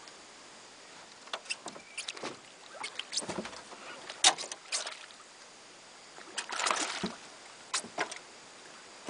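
A hooked fish splashing at the surface beside a small boat as it is brought alongside, with scattered sharp knocks on the boat. The splashes and knocks come irregularly, in clusters, loudest about four seconds in and again around seven seconds.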